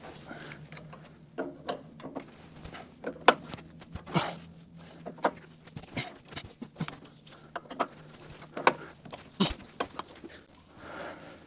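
Irregular sharp metallic clicks and knocks from a wrench working a seized diesel injector nozzle back and forth, trying to free it without shearing it off.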